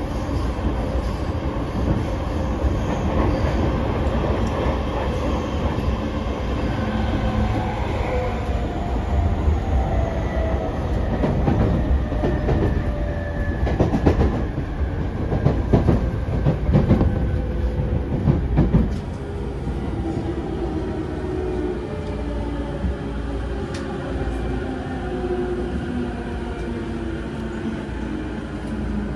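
Inside a JR East E231-series 0 electric commuter car slowing for a station: the traction motors' whine falls steadily in pitch over the rumble of the wheels, with a spell of rail-joint clatter. About two-thirds of the way through, the train comes to a stop and the sound drops to a lower steady hum.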